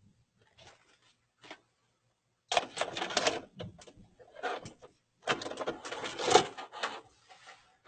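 A VHS cassette going into a VCR, the deck's loading mechanism taking it in and threading the tape: a few faint clicks, then bursts of mechanical clatter from about two and a half seconds in.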